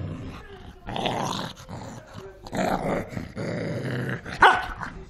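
Cocker spaniel growling in several bursts while tussling with a person's hand, with one short, loud yap near the end.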